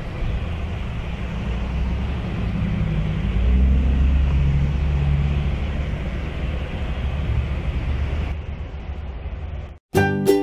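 A steady low rumble, a little louder in the middle, that cuts off abruptly about half a second before the end. Light plucked, piano-like music then starts.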